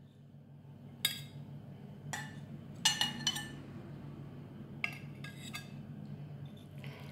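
A serving utensil clinking against ceramic plates as grilled beef patties are set onto them: about seven sharp clinks, each ringing briefly, with a few seconds of gaps between groups.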